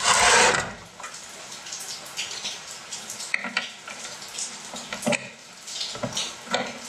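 Heavy welding ground cable rustling and scraping on the bench as its connector is pushed into the welder's positive output terminal. There is a loud scrape right at the start, then softer rustles and small clicks and knocks of the plug seating.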